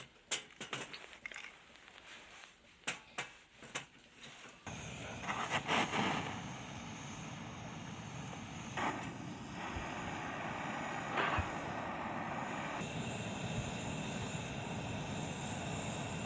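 Scattered raindrops tapping, then a steady hiss of rain that starts abruptly about five seconds in and carries on.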